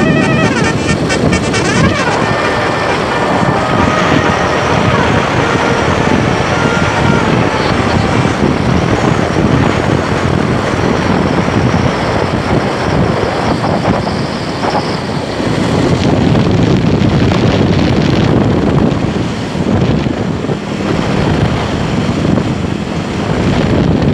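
Loud, steady road noise of heavy vehicles, with wind on the microphone. A multi-tone 'telolet' bus horn melody fades out in the first second or two.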